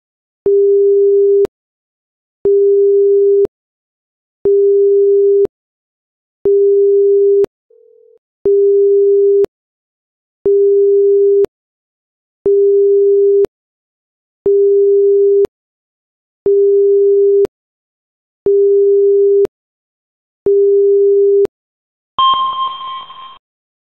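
Seismic monitor's electronic alert tone: a steady low beep, one second on and one second off, repeated eleven times. A brighter chime with a fading noisy tail follows about 22 seconds in.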